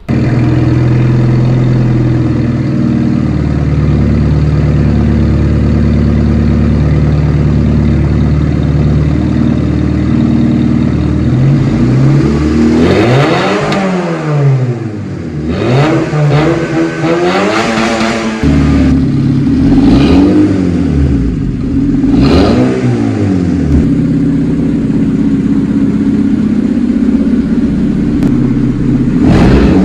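Honda Civic four-cylinder engine in a home-built supercar, heard through a custom dual exhaust made from superbike exhaust pipe. It starts and idles steadily, then from about 11 seconds in it is revved in a string of blips, each rising and falling in pitch. It settles back to idle and is revved once more near the end.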